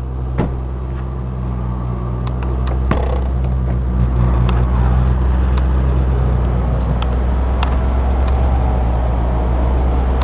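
A 2007 Ford E450 van's 6.8-litre V10 running at a raised automatic idle that keeps the air conditioning cold: a steady low hum that grows a little louder a few seconds in. A few light clicks and knocks sound over it.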